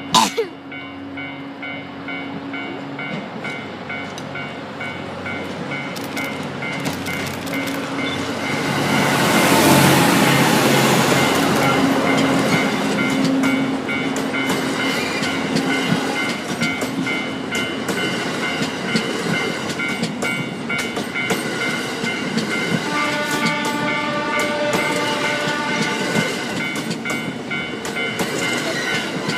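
Electric locomotive-hauled sleeper train passing, its wheels clacking over the rail joints; the noise is loudest from about eight to twelve seconds in and then the coaches keep rolling by.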